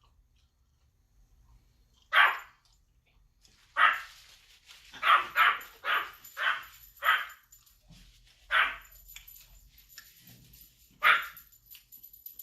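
A dog barking in short, sharp barks, about nine in all, with a quick run of them in the middle: a dog demanding a share of the chicken being eaten.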